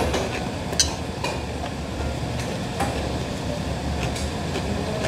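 A spoon clinks against a metal bowl a few times while someone eats, the sharpest clink about a second in, over a steady low rumble of room noise.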